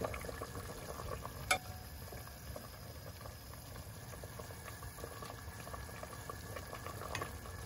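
Soup bubbling at a boil in a stainless steel pot, a steady low simmering crackle. One sharp click of metal tongs comes about a second and a half in.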